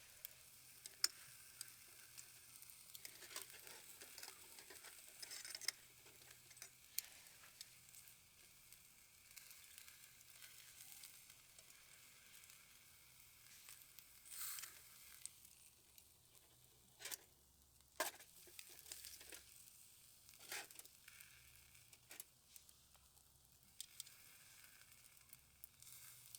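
Steak sizzling faintly in a pan over charcoal that has not fully caught, with scattered small clicks and a few short, louder noises.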